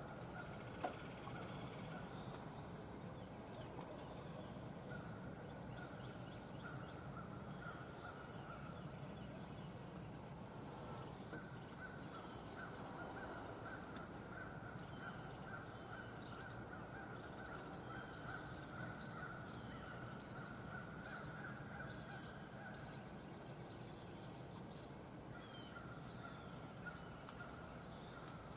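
Quiet field ambience: a steady hiss with scattered short, high bird chirps and calls.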